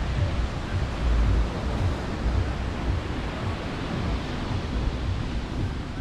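Surf washing on a beach, with wind buffeting the microphone in uneven low rumbles.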